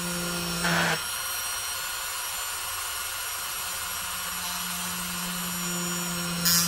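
Dremel rotary tool running with a small drill bit, boring a jump-ring hole through a cured polymer clay pendant. A steady high whine throughout, with a lower hum and brief louder grinding about a second in and again near the end.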